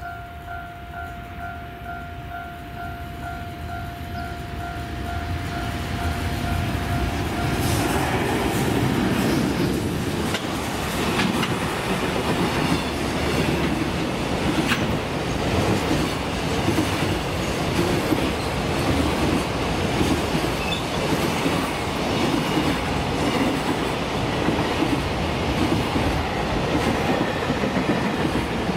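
Long container freight train passing at speed. Its rumble grows over the first eight seconds, then holds as a loud, steady clatter of wheels over the rail joints as the container flatcars roll by.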